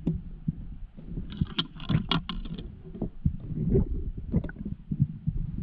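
Muffled underwater sound of a diver swimming: low rumbling water movement with scattered knocks and clicks, and a brief crackling burst about a second and a half in, lasting about a second.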